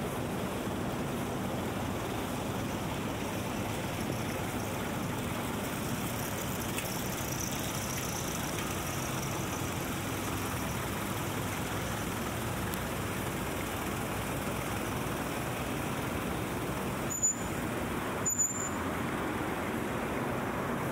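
Steady city street traffic noise from road vehicles. Two brief high-pitched blips come near the end, about a second apart.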